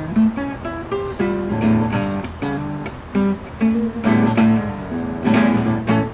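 Acoustic guitar playing an instrumental swing passage, mixing picked single notes with strummed chords.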